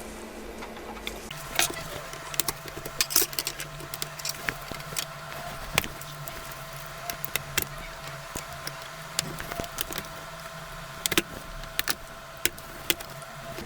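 Small clicks and taps of tools and parts being handled during a laptop's disassembly, bunched near the start and near the end, over a steady hum that starts about a second in.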